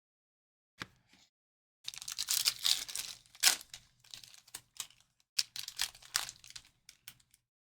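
Foil trading-card pack wrappers being torn open and crinkled by hand, in bursts of crackling, after a single click about a second in.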